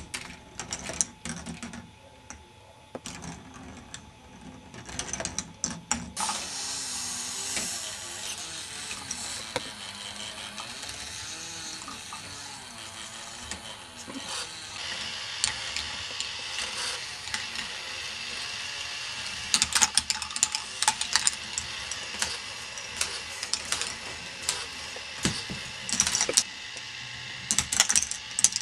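K'nex ball machine running: plastic gears and the ball lift clicking and rattling. A steady whirr comes in about six seconds in, with clusters of sharp clicks later on.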